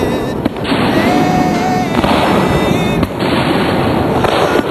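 Fireworks display: aerial shells bursting in a dense, continuous din, with a few sharper booms standing out about half a second, three seconds and near the end.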